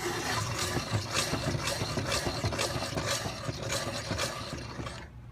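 Manual wheel grinder being turned by its crank handle: an uneven run of rattling clicks and scrapes, a few a second, easing off near the end.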